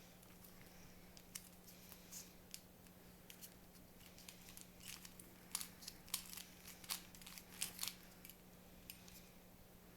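Faint clicking of a mini speed cube's plastic layers being turned by hand, in quick runs that are busiest from about five to eight seconds in, over a steady low hum.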